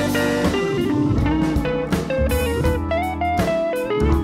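Background music: a guitar melody of held notes stepping up and down over bass and drums.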